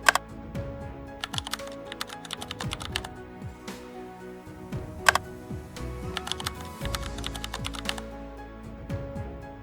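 Background music with held notes, under a run of quick, irregular sharp clicks like keyboard typing. The loudest click comes about five seconds in.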